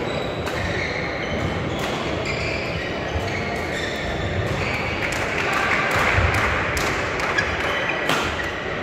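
Badminton rackets striking shuttlecocks as short sharp pops and sports shoes squeaking on the court floor, several courts at once, over a murmur of voices echoing in a large hall.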